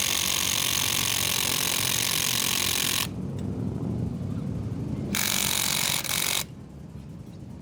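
Impact wrench hammering in two bursts, a long one of about three seconds and a shorter one of just over a second, trying to break loose a stubborn fastener on a motorcycle front fork.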